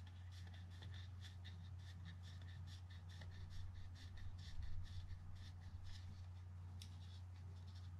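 Faint handling noise: gloved fingers rubbing and ticking against a fishing reel's side plate and metal frame posts as grease is worked in around the bearing, with many small light clicks over a steady low hum.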